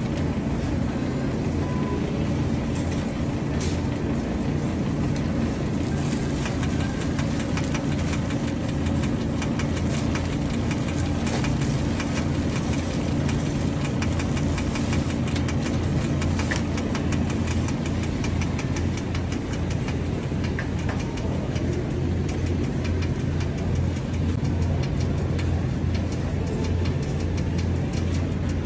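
Shopping cart rolling on a hard store floor, its wheels and wire basket rattling in a fast, continuous clatter over a steady low hum.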